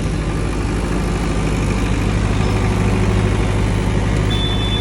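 62.5 kVA Cummins diesel generator set running steadily under its acoustic enclosure, a constant low engine drone. A high, steady beep starts near the end.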